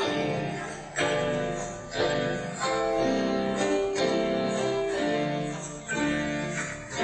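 Instrumental music, with a new chord struck about once a second.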